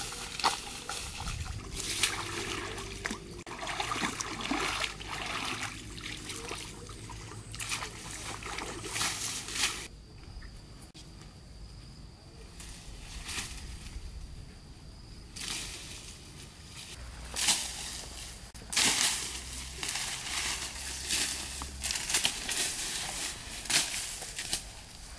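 Shallow water sloshing and splashing as people wade and jab long sticks into waterside brush. After a quieter stretch partway through, this gives way to irregular rustling, scraping and steps as they walk through scrub, dragging sticks.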